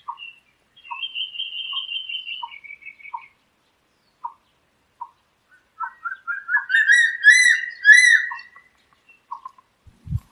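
Crested serpent eagle calling: a high whistle held for a second or two that steps down in pitch. After a pause, a run of loud repeated whistled notes starts about six seconds in.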